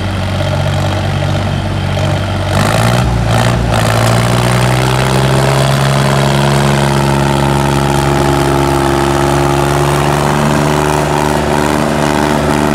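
Diesel engine of a DI-50 tractor running, then revved up about two and a half seconds in and held at a steady high pitch at full throttle under heavy load, pulling against another tractor in a tug-of-war.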